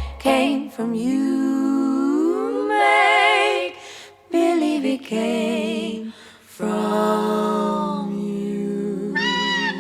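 Three-part vocal harmony singing 1930s swing-style close harmony unaccompanied: sustained chords with vibrato, the voices sliding upward together in the first few seconds, broken by two short pauses.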